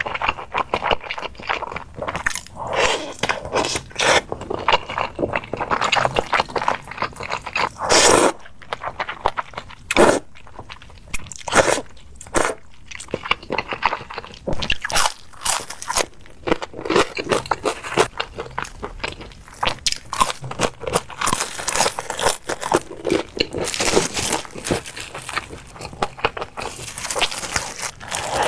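Close-up eating sounds: a person biting and chewing crunchy food, with quick, irregular crackles and mouth noises.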